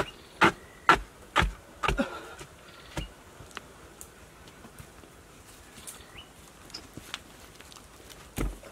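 A wooden-handled digging tool striking hard, dry earth at the bottom of a pit, about two strokes a second, with a last stroke about three seconds in. After that there are faint insect buzzing and bird chirps, and a dull thump near the end.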